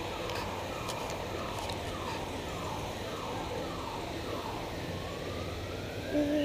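Emergency vehicle siren sounding over steady street traffic noise: a fast repeated falling sweep, about two a second, that switches to a slow rising wail after about four and a half seconds. A brief low tone comes near the end.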